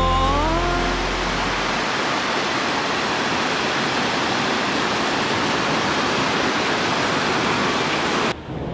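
Steady, even hiss of heavy rain pouring down, following the last sung note of a pop song, which rises and ends in the first second. The rain sound cuts off abruptly near the end.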